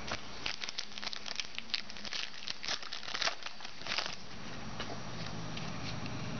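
Crinkling and rustling of a foil trading-card pack and its cards being handled, a quick flurry of short crackles that dies away after about four seconds.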